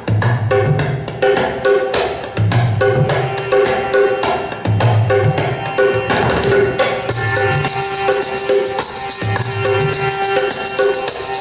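A percussion-driven song played through a Philips MMS 6060F 2.1 speaker system, the subwoofer giving strong repeated bass beats under sharp drum hits. About seven seconds in, a bright, sustained high sound joins, and the track drops away at the very end.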